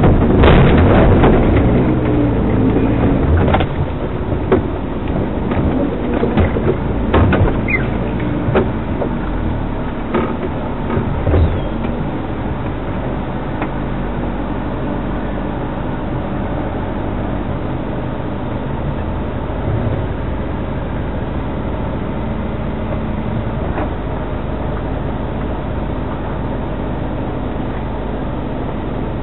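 Off-road vehicle engine running under knocks and rattles as the vehicle bumps over rough forest ground. After about twelve seconds the knocks stop and the engine settles into a steady idle.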